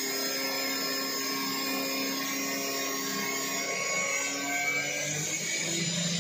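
Angle grinder on an automatic test rig cutting a 16 mm stainless steel rod with a 4.5-inch, 1 mm thin cut-off wheel: a steady motor whine and grinding noise under load. One cut finishes near the end.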